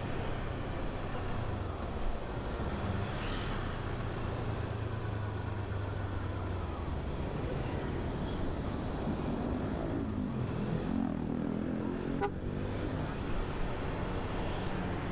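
Kawasaki Versys 250 motorcycle's parallel-twin engine running steadily while riding, with traffic noise around. About ten seconds in, an engine's pitch rises and falls, followed by a short sharp click.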